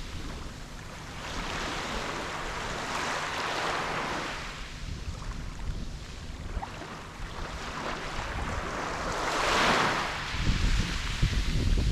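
Small waves washing onto a beach, each wash swelling and fading about every three seconds, with low wind buffeting on the microphone toward the end.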